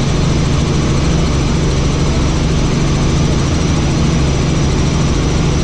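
Helicopter in flight: a loud, steady drone of rotor and turbine with a strong low hum.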